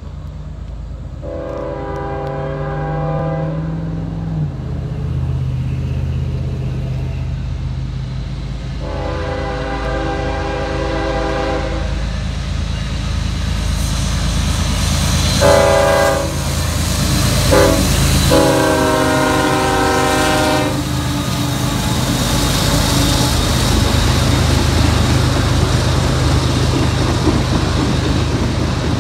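Norfolk Southern freight train's diesel locomotives approaching with a low engine rumble, the lead unit sounding its multi-chime air horn in two long blasts, a short one and a final long one, the grade-crossing signal. After the last blast the empty ethanol tank cars roll past with steady wheel-on-rail noise.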